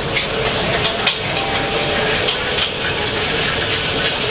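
Metal spatula scraping and clattering against a wok in irregular quick strokes as pad thai noodles are stir-fried.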